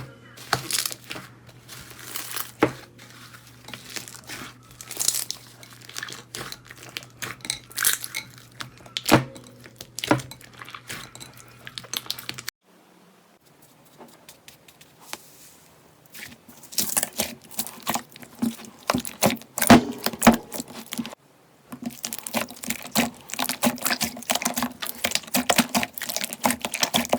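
Slime being squished and stretched by hand, giving quick sticky clicks, pops and crackles. A low steady hum sits under the first half. A quieter stretch follows about halfway, then denser crackling.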